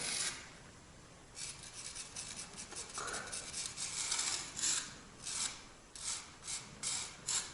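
A groove being scraped by hand into a brick for the grate bars, in repeated short scraping strokes that start about a second and a half in and come about two a second in the latter part.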